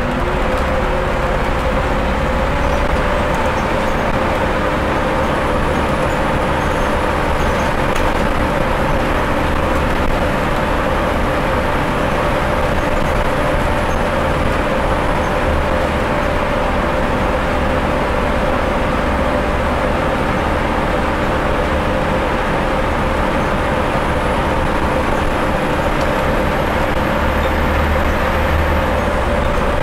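Scania N230UD double-decker bus's five-cylinder diesel engine working hard at a steady pitch as the bus drives along, heard from inside the passenger saloon with a low road rumble under it. A faint high whistle runs above the drone and stops near the end.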